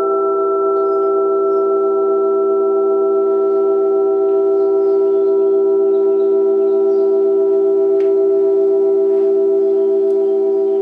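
Thin-walled church bells and thick bila ringing together as one steady, sustained chord of several tones. The tones pulse slowly as they beat against each other, with no sharp new strikes standing out.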